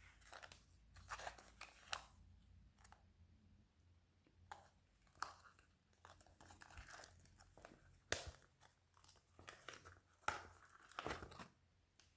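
Slime being stretched and worked by hand, giving quiet, irregular crackles and tearing sounds with a few sharper pops.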